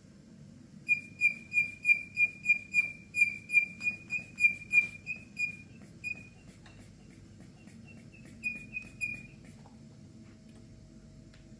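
Rubber squeeze bulb of an aneroid blood-pressure cuff squeaking as it is pumped to inflate the arm cuff: a quick run of short, high, even squeaks, about three a second, then a short group of three near the end.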